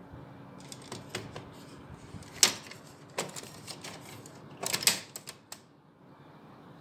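Plastic clicks and knocks from the return-air grille of an LG ceiling cassette air conditioner being pushed shut and pressed into place by hand. There is one sharp knock about two and a half seconds in, the loudest, and a quick cluster of clicks near five seconds, over a low steady hum.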